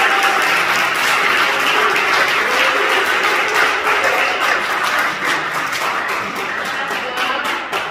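Crowd applauding, the clapping thinning out into separate claps near the end.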